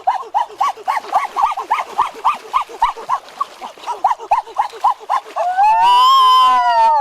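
An animal's calls: a fast run of short, high yelps, about four or five a second, then one long rising-and-falling whine that starts near the end.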